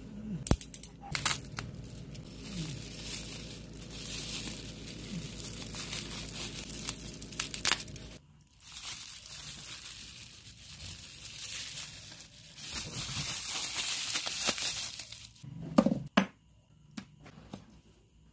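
Bubble wrap crinkling and rustling as hands unwrap a Beyblade spinning top, with a few sharp clicks about two seconds before the end.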